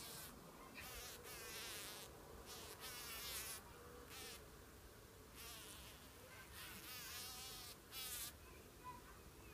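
Bumblebee buzzing in short, repeated bursts with a wavering pitch as it struggles in a spider's grip.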